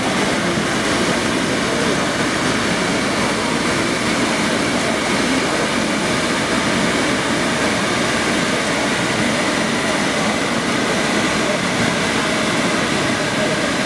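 Two hand-held bamboo tube fireworks (tezutsu hanabi) spraying sparks: the burning powder gives a steady, unbroken rushing hiss.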